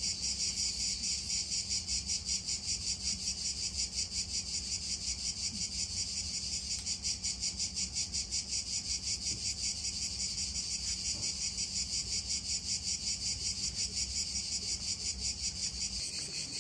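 A chorus of insects chirping in a fast, even pulse, about four beats a second, over a steady high buzz.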